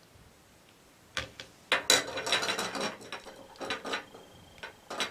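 Plastic pots and packaging being handled: a few sharp clicks, then a loud crackling rattle lasting about a second, then more scattered clicks.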